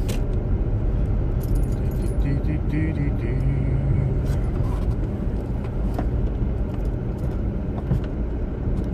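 Car running and rolling slowly, heard from inside the cabin as a steady low engine and road rumble, with a few faint clicks and knocks.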